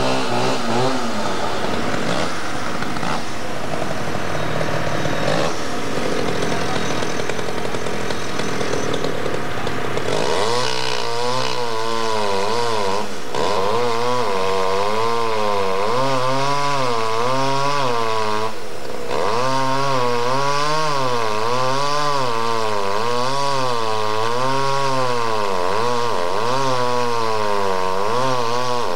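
Two-stroke chainsaw running, its motor pitch rising and falling in an even swell about once a second from about a third of the way in, with a noisier, less even stretch before that.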